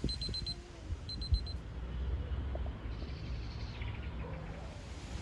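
A digital probe thermometer's alarm beeping in quick runs of about four short, high beeps, twice in the first second and a half. After that comes a soft, steady rustle of wind in the leaves.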